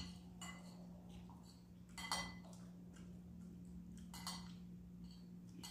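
Quiet room with a steady low hum and soft clinks of tableware against dishes, twice: about two seconds in and again about four seconds in.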